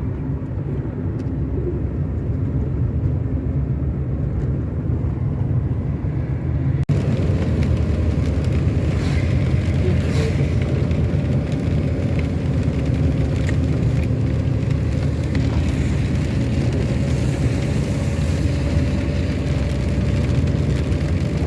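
Car cabin noise while driving: a steady low rumble of engine and tyres. About seven seconds in the sound cuts abruptly, and after that more hiss and a faint steady whine join the rumble.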